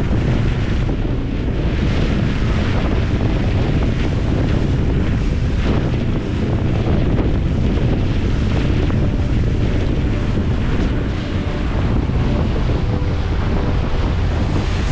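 Steady wind buffeting the microphone, with waves and water rushing around a boat underneath.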